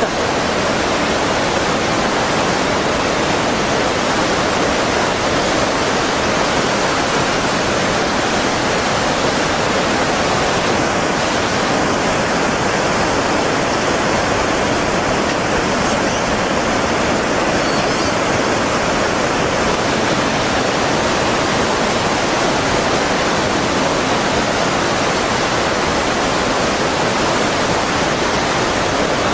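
Steady, loud rushing of tsunami floodwater, an even roar with no breaks, with a faint high whine for several seconds in the middle.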